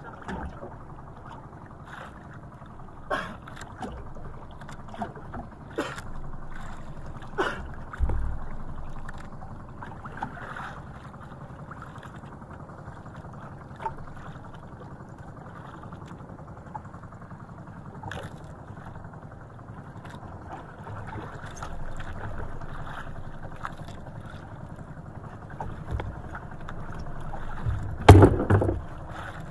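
Steady wash of wind and water around a small outrigger fishing boat, with scattered knocks and clicks as fishing line is handled over the side, and a louder thump near the end.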